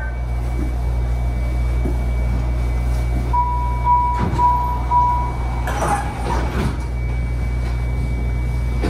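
Interior of a MARTA rail car with a steady low hum. A little past the middle come four short, same-pitched electronic beeps, the warning chime of the car doors about to close, followed by a few knocks.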